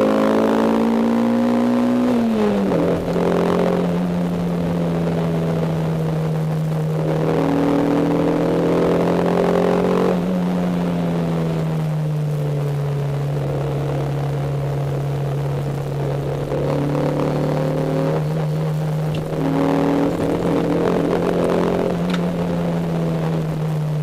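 Toyota 4A-GE twin-cam four-cylinder engine heard from inside the cabin of an AE92 Corolla on the move. Its note rises, drops sharply a couple of seconds in, then holds and steps lower twice more as the revs settle. Interior plastics rattle from vibration carried through solid polyethylene engine mounts.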